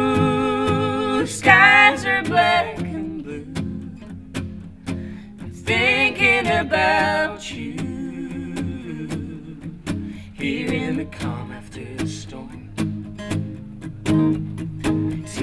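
Two acoustic guitars strummed and picked in a slow ballad, with sung vocal phrases that come and go over them, about a second and a half in, around six seconds in and again near eleven seconds.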